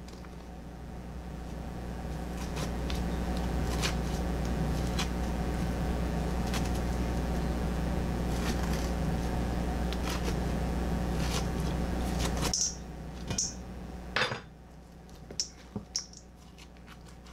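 Metal spoon scraping and clicking against a halved pie pumpkin and a stainless steel bowl as the seeds and pulp are scooped out, with a few sharp clinks near the end. A steady low mechanical hum runs underneath and cuts off suddenly about twelve seconds in.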